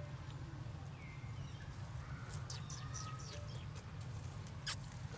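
Light rustling and scattered clicks of a long-tailed macaque walking over stones through grass and leaves, over a steady low rumble, with one sharper click near the end.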